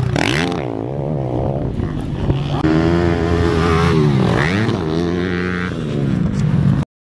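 Motocross dirt bike engines revving hard, the pitch repeatedly rising and falling as the throttle is worked. The sound jumps abruptly about two and a half seconds in and stops suddenly near the end.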